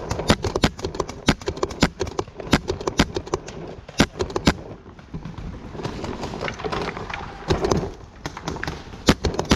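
Paintball markers firing: many sharp pops in a quick, irregular string, some close and loud.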